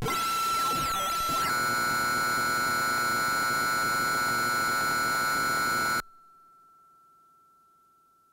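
Harsh electronic music: dense digital noise layered with steady high tones, with sweeping pitches in the first second and a half. It cuts off abruptly about six seconds in, leaving one faint high tone that fades away.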